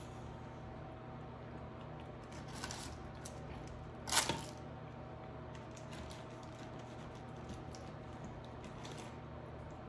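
Close-miked sounds of seafood being pulled apart and eaten: a single sharp crack about four seconds in, with softer squishes and small clicks before and after, over a steady low hum.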